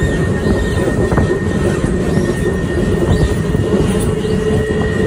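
Passenger train running on the rails, heard from aboard: a steady low rumble with a continuous high-pitched wheel squeal, typical of wheel flanges rubbing as the train rounds a curve. A few sharp clicks from the rails sound through it.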